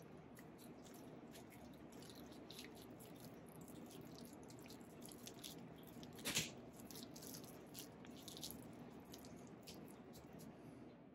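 Faint wet squishing and small clicks of a ripe banana being crushed and squeezed in the hands, peel and all, with one louder squish about six seconds in.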